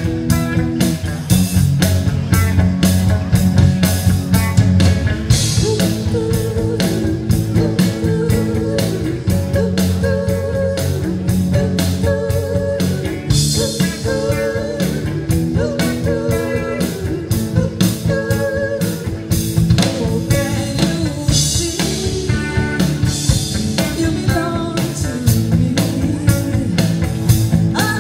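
Live band playing a song: a woman singing over electric guitars, bass guitar and a drum kit keeping a steady beat.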